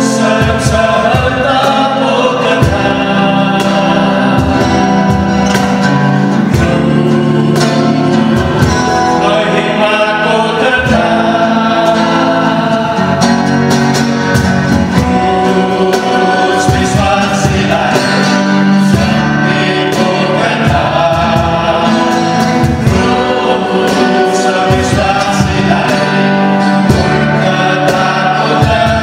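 A mixed group of men and women singing a Nepali gospel song together in harmony, accompanied by a strummed acoustic guitar and a cajón keeping the beat.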